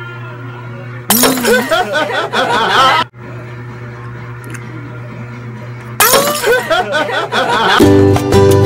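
Glass breaking and shattering, two loud crashes of about two seconds each, the first about a second in and the second near the end. Plucked guitar music starts just before the end.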